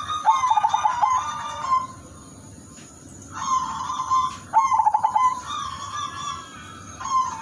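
Zebra dove (perkutut) singing its cooing song: phrases of held coos that break into a quick stuttering run of short notes. There are two full phrases with a pause of over a second between them, and a third begins near the end.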